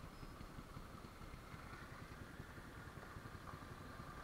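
Small pit bike engine running faintly and steadily, getting a little louder toward the end.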